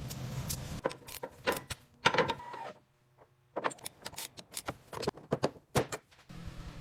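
Irregular mechanical clicks and clunks of parts being fitted, with a short pause about midway.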